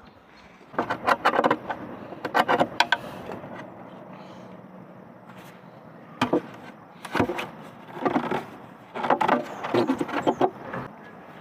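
Irregular bursts of clattering and rustling from building materials being handled: several clusters of sharp clicks and knocks, the first two about a second and two seconds in and the busiest run near the end.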